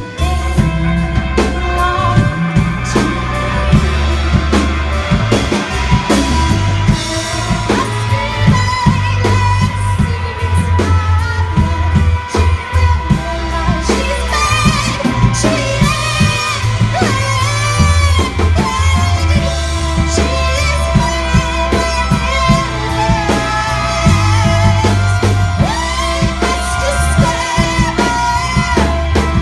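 A live band playing: drum kit beating time under a bass line that moves every few seconds, with singing over the top.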